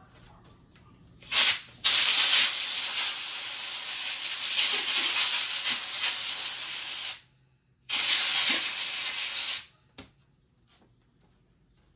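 Compressed air blowing from a blow gun in three blasts: a short one about a second in, a long one of about five seconds, then one under two seconds. It is cleaning built-up dirt off the lawn mower.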